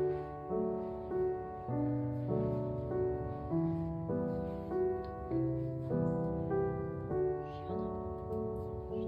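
Background piano music, single notes and chords struck at an even, unhurried pace.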